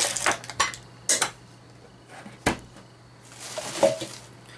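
Vinyl toy figure being handled and turned in the fingers: a few short, sharp clicks and knocks, then a soft rustle near the end.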